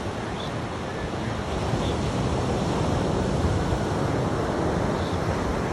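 Ocean surf washing onto the shore, mixed with wind buffeting the microphone; the rumble grows a little louder about a second and a half in.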